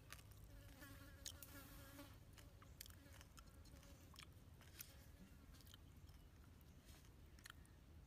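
A fly buzzing close by, faint and steady, from about half a second to about four seconds in. Scattered faint clicks and ticks run throughout as fingers pick fried fish flesh off the bones.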